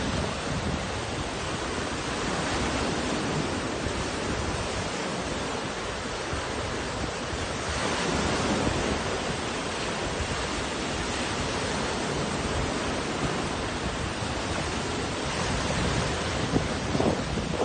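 Surf breaking on a beach in strong monsoon wind, with wind buffeting the microphone: a steady rush of noise that swells about eight seconds in and turns gusty near the end.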